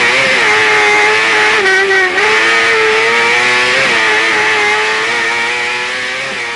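Kart cross racer's engine running hard at high revs, heard onboard, its pitch rising and dipping with the throttle and briefly breaking about two and four seconds in. The sound fades out near the end.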